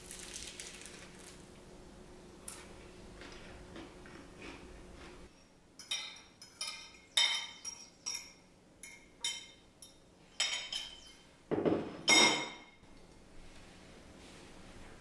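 A metal fork clinking and scraping against a ceramic bowl in a run of sharp taps as filling is pushed out of it, the loudest clatter coming near the end.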